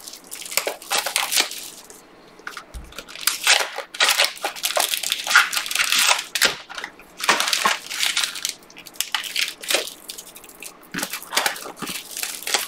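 A Panini basketball trading-card box being opened by hand and its wrapped packs handled: irregular crinkling, rustling and tearing of cellophane, foil and cardboard, with a soft thump about three seconds in.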